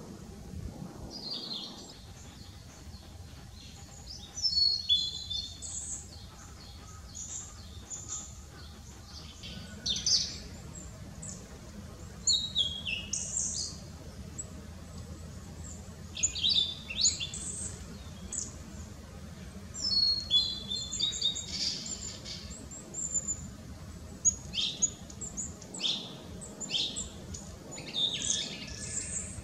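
Male blue-and-white flycatcher singing: repeated short phrases of high, clear whistled notes, some sliding downward, one phrase every couple of seconds.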